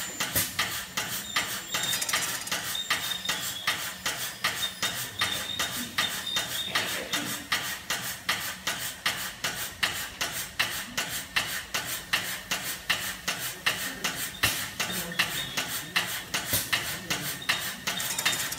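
Automatic pancake (spring roll wrapper) making machine running, with a rapid even clicking about three to four times a second over a faint steady whine and hum of its drive.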